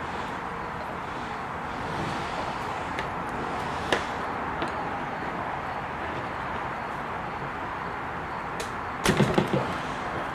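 Small parts being handled on a workbench during a sewing machine repair: a single sharp click about four seconds in, then a short clatter of several knocks near the end, over a steady hiss.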